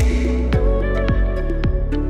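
Electronic background music with a deep, pitch-dropping kick drum about twice a second over a steady bass line, and a cymbal crash at the start.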